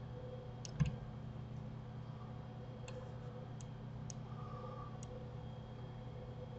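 A few scattered computer mouse clicks, about six over several seconds, with a soft knock just under a second in as the loudest sound, over a steady low electrical hum.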